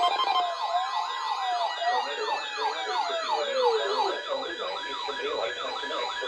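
Several electronic alert alarms sounding at once: fast siren-like yelps, several a second, overlapping with steady tones, and one tone sliding down in pitch between about two and four seconds in.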